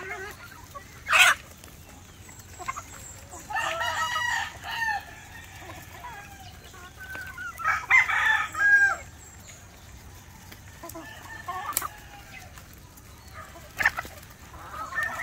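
Gamefowl chickens: roosters crowing twice, a few seconds apart, over hens clucking, with a few sharp clicks in between.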